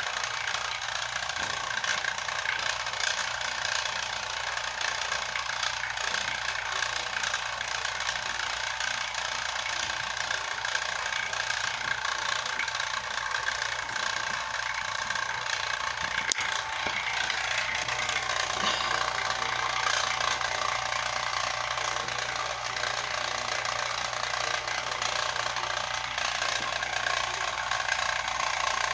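Electric rotary-vane vacuum pump running steadily as it holds the bottle under vacuum, mixed with the buzz of a flyback-transformer high-voltage supply driving a glow discharge.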